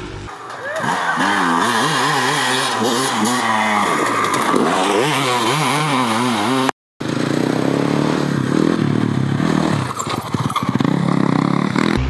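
Dirt bike engine revving, its pitch rising and falling over and over as the throttle is worked. The sound cuts out to silence for a moment about seven seconds in, then dirt bike engine noise resumes.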